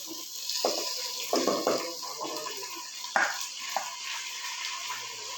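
Washed rice sizzling as it fries in hot ghee in a pressure cooker, a steady hiss broken by several sharp scrapes and knocks of a spatula stirring it.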